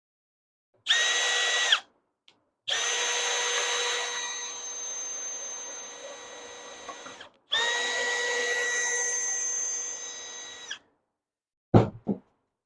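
Cordless drill running in three bursts, one short and two of several seconds, its whine holding a steady pitch and getting quieter through the longer runs. A couple of sharp knocks come near the end.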